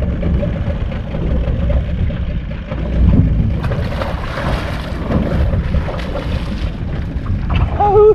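Wind buffeting the microphone on a boat at sea, over the low, steady rumble of the boat's engine and water against the hull. A rush of louder water noise comes in about three and a half seconds in and fades before the end.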